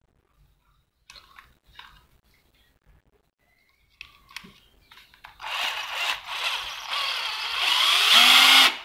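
A few faint handling clicks, then about five seconds in a Ryobi cordless drill's motor is triggered and runs with a loud whirr, its speed shifting up and down, before stopping abruptly near the end.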